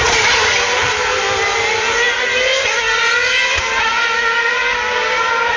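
2.4-litre V8 Formula 1 engines screaming at high revs, several engine notes overlapping as the cars run past. The pitch drops over the first couple of seconds, then climbs again as they accelerate. The sound is thinned by an old mobile phone's microphone.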